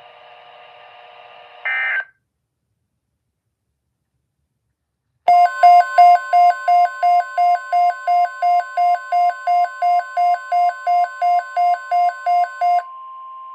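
A weather radio receiver's alert alarm beeping rapidly, about three beeps a second, over the steady 1050 Hz NOAA Weather Radio warning alarm tone. That tone carries on for a moment after the beeps stop. It is the signal that a new alert broadcast is coming. Before it there are a couple of seconds of faint radio hiss ending in a short burst, then a few seconds of silence.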